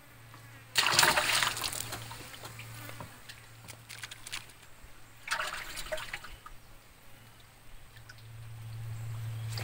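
Water splashing and sloshing at the side of a wooden boat, once loudly about a second in and again more briefly about halfway through, as water is worked by hand over the side. A steady low hum runs underneath and grows louder near the end.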